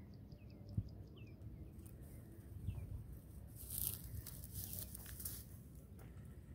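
Rustling of dry grass and shrubs, swelling into a brief hiss from about three and a half to five and a half seconds in, over a low steady rumble, with a single sharp click about a second in.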